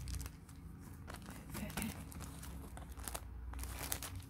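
Thin plastic packaging bag crinkling and rustling in irregular crackles as it is handled.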